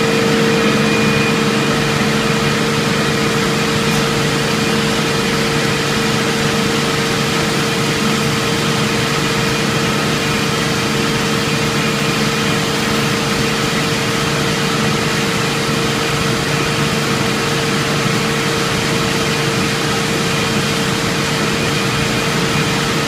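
HDPE raffia tape stretching line running in full production, its banks of tape winders and drive motors giving a steady loud mechanical rush with a constant hum.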